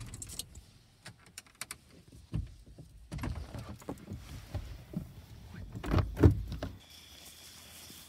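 Rustling, clicks and several heavy thumps of people moving about and handling things close to the microphone, the loudest thumps about six seconds in; then a steady faint hiss with a thin high tone.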